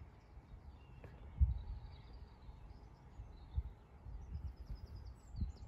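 Wind buffeting the microphone in irregular low rumbles, the strongest about a second and a half in, with small birds chirping faintly.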